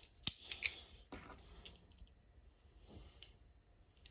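Metal Allen keys clicking and clinking against each other as one is picked out of a set: a few sharp clicks in the first second, then scattered fainter ones.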